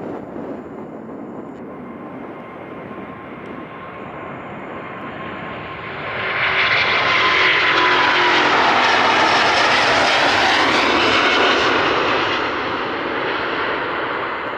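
Airbus A350-900 jet engines (Rolls-Royce Trent XWB) at take-off thrust. The rushing roar swells sharply about six seconds in as the airliner passes close, stays at its loudest for several seconds, then begins to fade.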